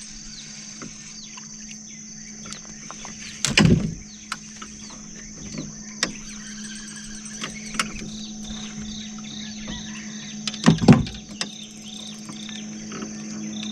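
Outdoor ambience of birds calling and a steady insect drone. The bird calls turn into a regular run of short chirps, about two a second, in the second half. Two loud knocks stand out, about three and a half seconds in and again near eleven seconds.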